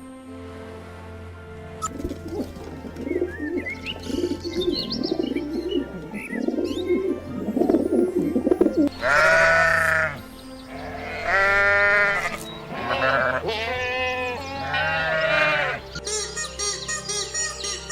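Four loud, wavering bleats from a goat or sheep in the second half, over background music. Before them comes a low, rapid murmuring with a few high bird chirps.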